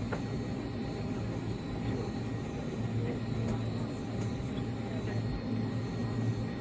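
Steady low hum inside the passenger cabin of a Boeing 757 on the ground before takeoff.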